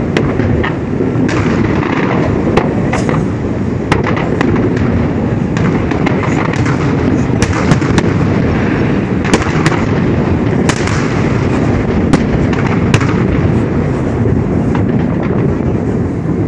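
Aerial fireworks display: shells bursting in quick succession, making a dense, steady low din with many sharp cracks and pops scattered irregularly through it.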